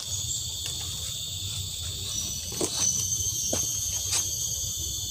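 Tropical forest insect chorus: several steady, high-pitched buzzing tones layered over one another. A few short crackles of footsteps through leaf litter and undergrowth come about two and a half, three and a half and four seconds in.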